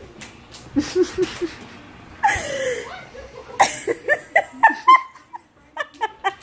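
A woman laughing in short bursts, breaking into a fast string of laughing pulses about halfway through.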